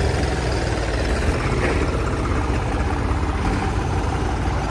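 Heavy engine running steadily at an even, low pitch, with no change in speed.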